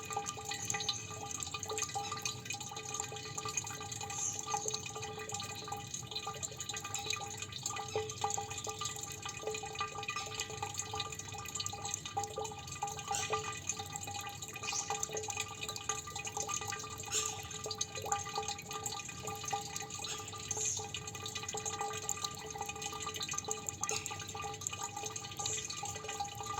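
Water dripping: many small drops plinking into water in a busy, irregular patter.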